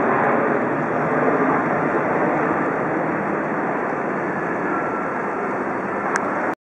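The four Rolls-Royce RB211 turbofans of a Boeing 747-400 at takeoff thrust, heard from the ground as the jet climbs away: a steady, dense rushing noise that eases slightly, then cuts off suddenly near the end.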